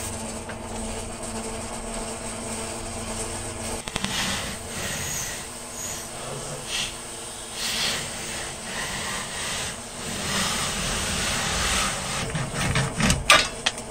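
Hand hacksaw sawing through a metal tab in a car's engine bay, in uneven rasping strokes. A few sharp clicks near the end.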